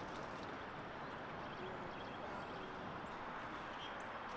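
Steady outdoor background noise with a few faint, short high chirps.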